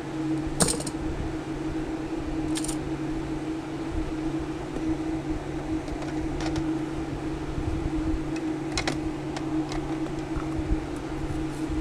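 A steady machine hum with a few light, sharp clicks and ticks at irregular intervals from small hand tools working on a circuit board during soldering repair.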